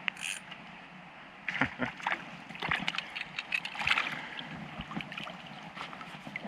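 River water sloshing and splashing close by, with scattered irregular clicks and knocks. It is heard through a camera microphone that has taken in water, which muffles the sound.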